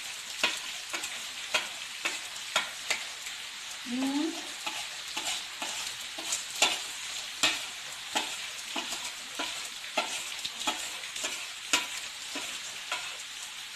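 Boiled potatoes frying in ghee with a steady sizzle, while a utensil knocks and scrapes against the pan in sharp, uneven clicks as ground spices are stirred in.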